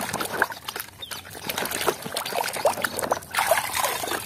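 A hand squelching and sloshing through thick, wet mud, with a quick run of short wet pops and gurgles.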